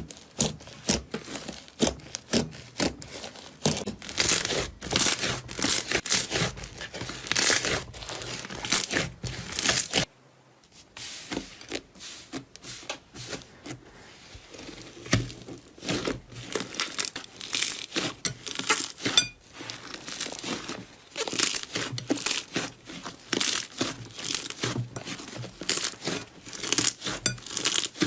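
Slime being squeezed and pulled by hand close to the microphone, giving rapid crackling and crinkling pops. The sound stops briefly about a third of the way in, then starts again.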